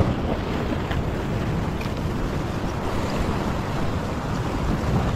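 Sea surf washing and breaking against a rock ledge, with wind rumbling on the microphone.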